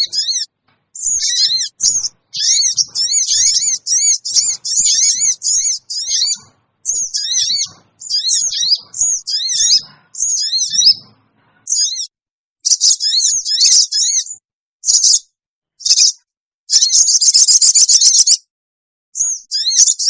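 Olive-backed sunbird (sogon) giving shrill, excited calls of the kind used as a lure: rapid runs of high chirps in bursts with short pauses, and a dense, continuous trill about three-quarters of the way through.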